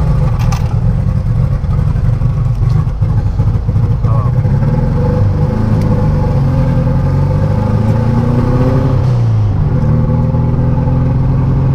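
Turbocharged 1700 cc air-cooled engine of a 1979 VW Beetle, heard from inside the cabin, pulling hard under acceleration. Its pitch climbs, drops at a gear change about nine seconds in, then climbs again.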